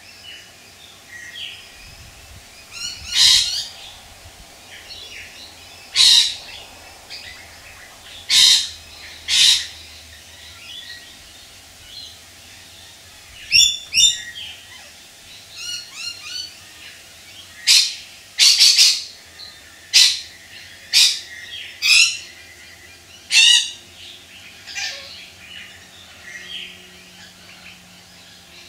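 Birds calling: short, loud calls every one to three seconds, some in quick pairs, over a faint steady background.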